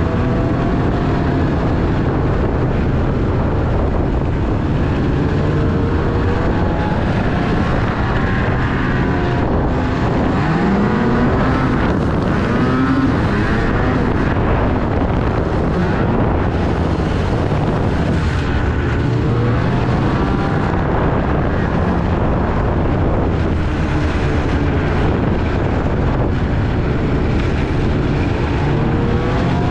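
Snowmobile engine running while the sled is ridden, its pitch rising and falling again and again as the throttle is opened and eased, with wind rushing over the microphone.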